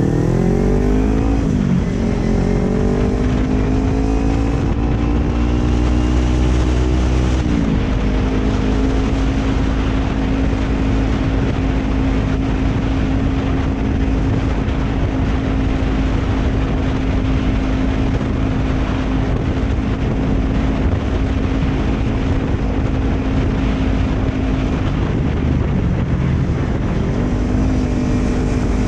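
Kawasaki Ninja 250 FI parallel-twin engine accelerating: revs climb, drop at an upshift about a second and a half in, climb again, drop at another shift around seven seconds in, then hold steady at cruising speed, dipping briefly near the end. Steady wind rush on the microphone.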